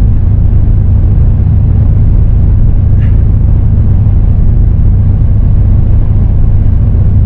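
Steady, loud low rumble of a moving vehicle heard from inside its cabin: road and engine noise.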